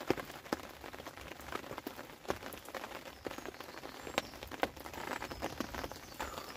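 Rain pattering on a fabric fishing umbrella overhead: irregular sharp taps of drops hitting the canopy.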